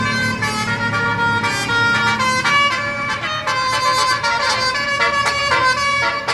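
Indonesian 'telolet' bus horn playing a quick tune, several horn tones sounding together and stepping from note to note every fraction of a second.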